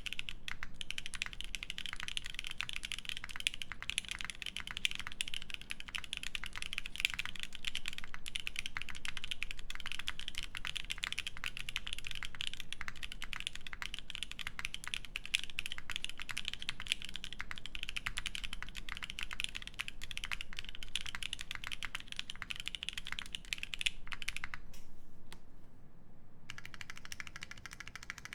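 Fast, continuous typing on an Aurora Input Series 65 mechanical keyboard with lubed Boba U4T tactile switches, GMK keycaps and an FR4 plate: a dense stream of keystroke clacks. The typing breaks off and changes character near the end.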